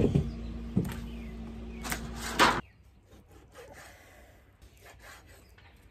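Raw pork butt being handled on a wooden cutting board, with a couple of sharp knocks about two seconds in, then quieter strokes of a knife cutting the pork against the board.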